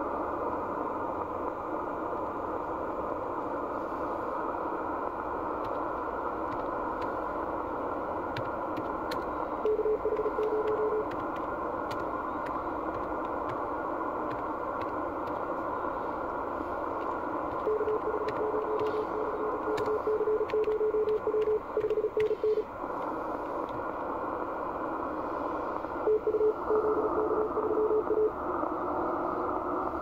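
Icom IC-7600 shortwave transceiver receiving on the 17 m band in CW mode: a steady band hiss, with a single-pitch Morse code tone keyed over it. The tone comes briefly about a third of the way in, in a longer run in the middle, and again near the end.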